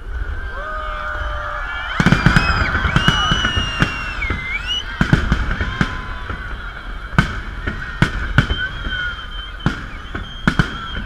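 Fireworks salute going off: a dense volley of sharp bangs begins about two seconds in, then single bangs follow at irregular intervals. Held and sliding pitched tones sound over the bangs, against a steady low rumble.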